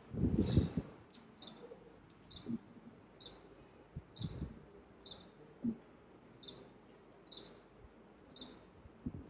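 A bird repeats a short, high, falling chirp about once a second. A loud, low rumbling thump comes in the first second, and a few softer low knocks follow.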